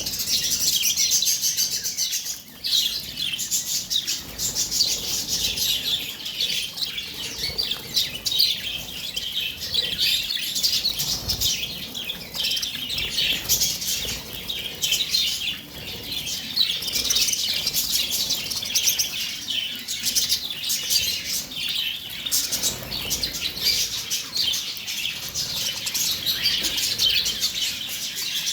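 Caged pet birds (lovebirds, a green-cheeked conure and Java finches) chirping and chattering together without a break, a dense stream of quick high chirps.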